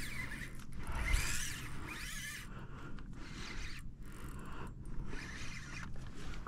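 Fishing reel being cranked to play a hooked fish, its gears giving an uneven mechanical rasp.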